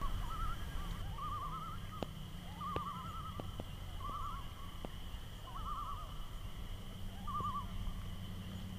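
Short, wavering trilled calls from several animals, repeated about once a second and sometimes overlapping. A steady high-pitched chorus and a low hum run underneath, with a few faint clicks.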